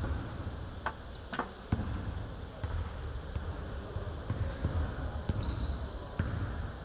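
Basketball bouncing on a hardwood gym floor, a handful of irregular thuds, with a few short high squeaks of sneakers on the court.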